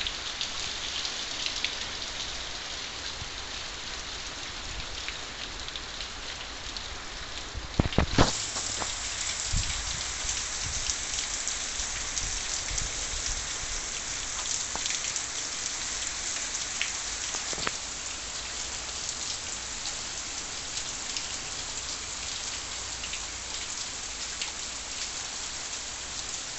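Steady rain falling, an even hiss that grows louder and brighter about eight seconds in. A couple of sharp knocks sound just before the change.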